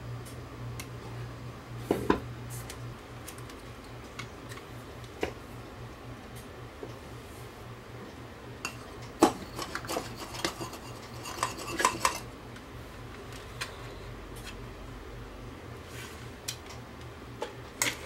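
Scattered light metallic clicks and clinks of small hand tools, such as needle-nose pliers, being handled against a circuit board and workbench. The clicks bunch together about nine to twelve seconds in, over a steady low hum.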